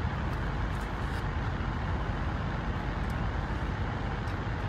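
Steady low rumble and hiss of a car interior, the background hum of the stationary car, with a few faint ticks.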